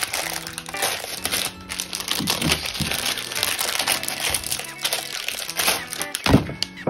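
Crinkling, rustling and many small clicks of hands handling a 3.5-inch hard drive and fitting it into a Drobo 5C drive bay, over quiet background music.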